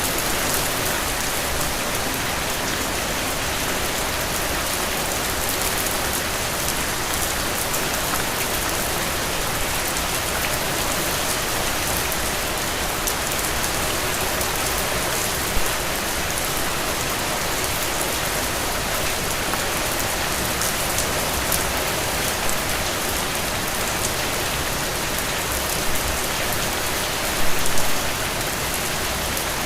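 Heavy rain falling steadily, a dense even hiss. A few louder drop impacts stand out about halfway through and again near the end.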